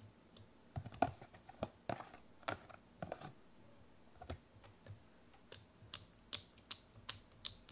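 Fluffy slime making faint, sharp sticky clicks and pops as it is squeezed out of a plastic tub into a mug and then poked with fingertips. The clicks come irregularly, closer together in the second half as the poking starts.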